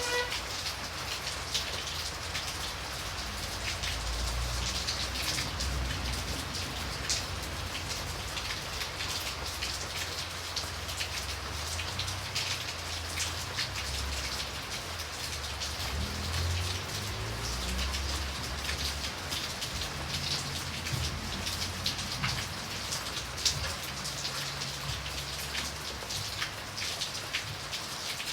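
Steady rain falling, with many individual drops tapping sharply on a nearby surface over the even hiss of the downpour. A low, uneven rumble runs underneath.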